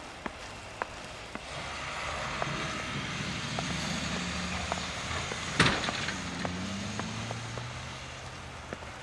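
A motor vehicle passing on a snow-covered road, its engine hum and tyre noise swelling and fading over several seconds. A sharp knock sounds about five and a half seconds in, with scattered light ticks throughout.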